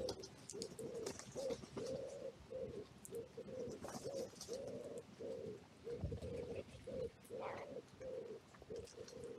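Pigeon cooing: a long, unbroken run of soft low coos, about two to three a second.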